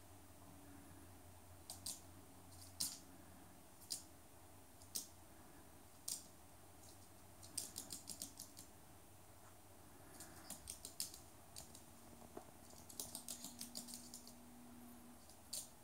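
Rainbow lorikeet's claws tapping and clicking on a hard laminate floor as it walks and hops: single sharp clicks at first, then quick runs of clicks about halfway through and again near the end.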